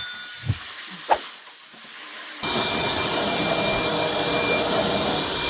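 A few knocks, then about two seconds in a loud steady hiss starts suddenly: water spraying under pressure from a burst pipe in a flooding house.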